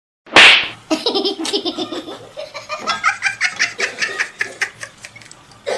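A sudden loud burst of noise, then a person laughing hard in rapid repeated bursts of voice.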